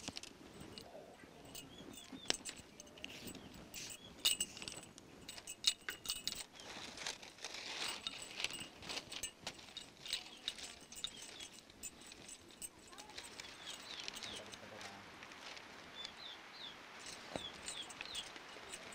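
Light clicking, tapping and rustling of thin split-bamboo strips being handled and stripped by hand for basket weaving. Short bird chirps come and go, more of them near the end.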